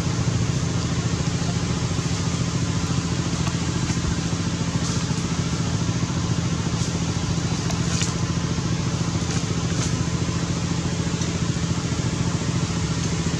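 Steady low drone of a running engine, unchanging throughout, with a few faint ticks over it.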